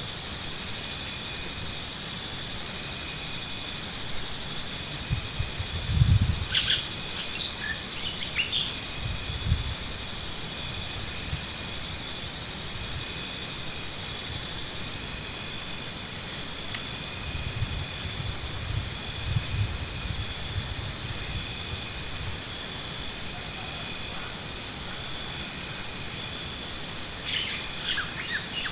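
Insects trilling in a rapid, high-pitched pulse, in bouts of about four seconds with pauses between, over a steady high hum. A couple of dull low thumps come about six and nine seconds in.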